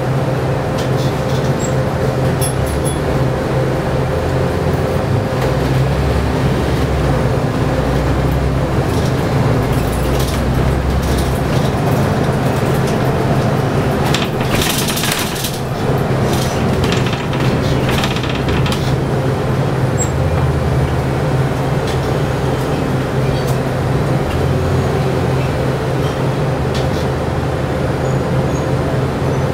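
Inside a city bus on the move: the engine runs with a steady low hum, along with small rattles and clicks. A short hiss comes about halfway through.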